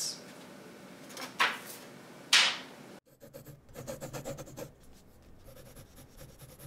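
Pencil rubbing and scratching on paper: two short swishes about a second apart, then a run of quick, quiet scratches.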